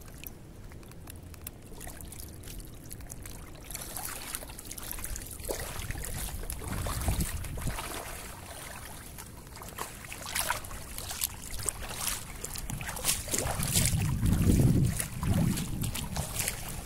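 Feet in flip-flops splashing and sloshing through ankle-deep seawater while wading. It is quiet for the first few seconds, then a run of uneven splashes begins about four seconds in and grows louder toward the end.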